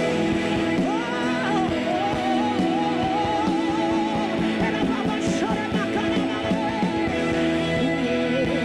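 Live gospel worship music: guitar and held chords under a wavering lead melody that enters about a second in and returns near the end.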